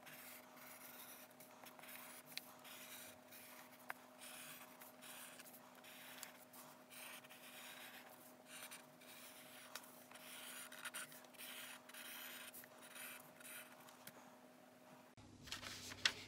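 Black marker pen drawing over lines on paper held against a pane of glass: faint, irregular scratchy strokes, one after another, over a faint steady hum.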